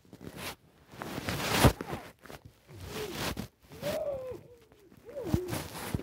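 Blankets and plush toys rustling against the phone, then several short wordless hums from a child that glide up and down in pitch.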